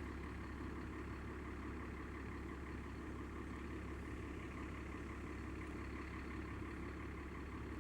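A steady low mechanical hum that holds level and pitch throughout, of the kind an idling engine makes.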